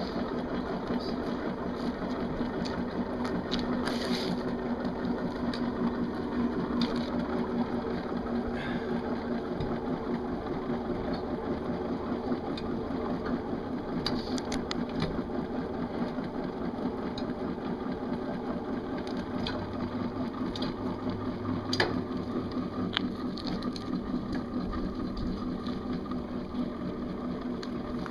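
24-inch boundary-layer Tesla turbine rig running, its heavy disk pack spinning with a steady mechanical whirr and hum. A few sharp clicks stand out, the loudest about three-quarters of the way through.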